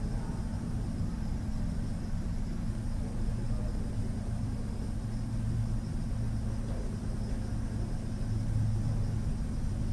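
Steady low background rumble with no distinct event in it; the playing gorillas make no sound that stands out.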